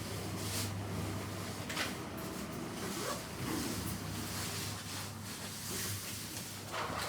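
Otis Gen 2 passenger lift travelling, a steady low hum from the moving car, with a few soft clunks and rustles.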